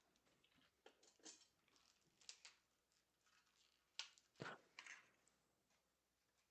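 Very faint, scattered clicks and rustles of a small cardboard box of tacks being opened and handled, the sharpest clicks about four seconds in.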